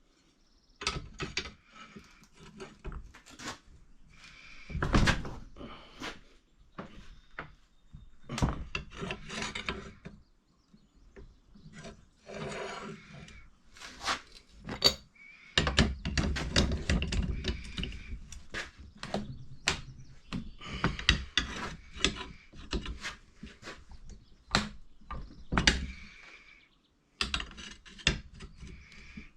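Hand work on a steel riding-mower blade being straightened: irregular sharp knocks mixed with stretches of scraping and rubbing.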